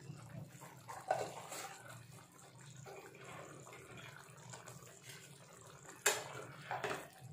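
Jackfruit and prawn curry simmering in a frying pan, a faint steady bubbling and hiss. About six seconds in, a spatula knocks against the pan.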